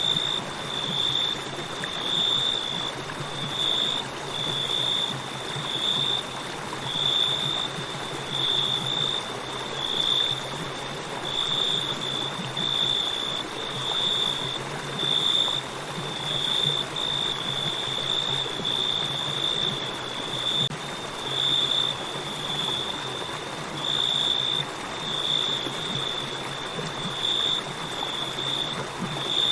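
Crickets chirping in an even pulse, about one chirp a second, over the steady rush of a flowing river.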